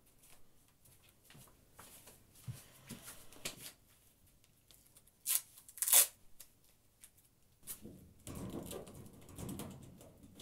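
Adhesive tape being handled, pulled from the roll and torn, with two short sharp rasps about five and six seconds in among small clicks and rustles.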